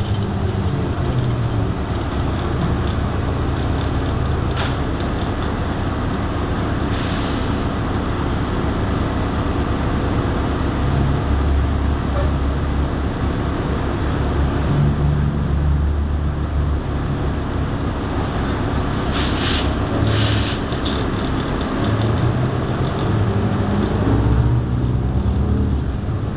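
Ride noise inside a New Flyer XD60 articulated diesel bus under way: a steady engine and drivetrain drone with road noise, the engine note rising and falling a few times as the bus changes speed. A few brief clicks or rattles come through, two of them close together about two-thirds of the way in.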